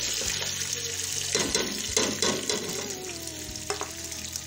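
Sliced onions sizzling as they go into hot oil in a metal pot, with sharp metal clinks from the spoon and plate against the pot as they are added and stirred, most of them between about one and a half and two and a half seconds in.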